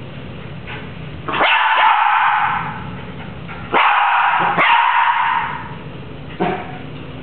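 Small dog barking in play in two quick runs of barks, one starting about a second in and one near four seconds, each lasting over a second, then one short yip near the end.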